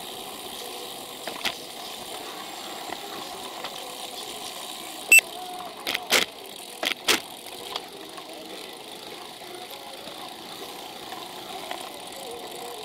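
Riding noise from a camera on a moving bicycle in city traffic: steady road and wind noise with distant vehicle engines. A single sharp click about five seconds in is the loudest sound, followed by a few quick knocks.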